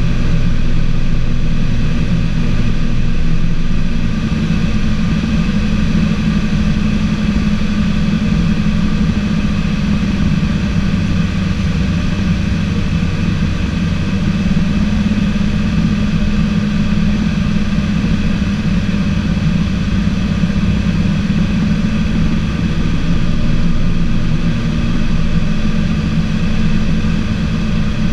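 Piper PA-34 Seneca's twin piston engines and propellers droning steadily on approach, heard from inside the cockpit. The engine tone shifts up a little about four seconds in.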